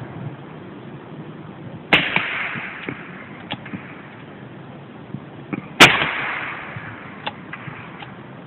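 Two black-powder gunshots about four seconds apart from a Remington revolving carbine and a Colt 1860 Army cap-and-ball revolver loaded with 15 grains of powder and .454 round balls. Each is a sharp crack followed by a trailing echo, with a few faint clicks in between.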